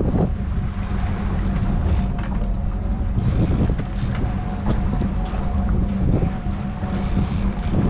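Sport-fishing boat's engine running with a steady low drone and a thin steady whine, with wind buffeting the microphone.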